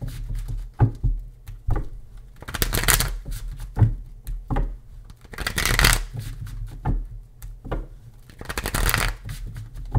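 A tarot deck being shuffled by hand: bursts of rustling card shuffling about every three seconds, with small taps and clicks of the cards between them.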